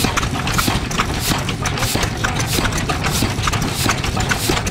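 Yanmar HC 10 hp single-cylinder diesel engine running, with a low rumble under an even, rhythmic clacking from its rocker arms and valve gear, a sharp click roughly every two-thirds of a second with fainter ticks between.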